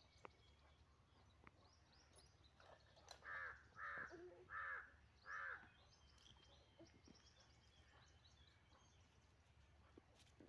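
A crow cawing four times in quick succession, a little over three seconds in, with faint chirps of small birds around it.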